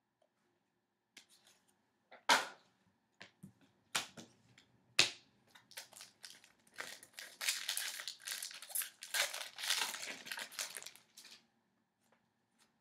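Plastic packaging of trading cards crinkling and crackling as it is handled, with a few sharp snaps about two, four and five seconds in, then a longer stretch of steady crinkling.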